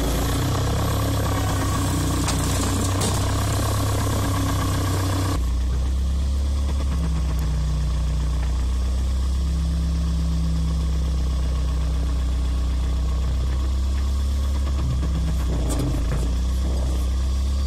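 Waryński K-406 hydraulic excavator's diesel engine working hard, then settling about five seconds in to a steadier, lower running note, with a higher hum coming and going as the hydraulics move the bucket.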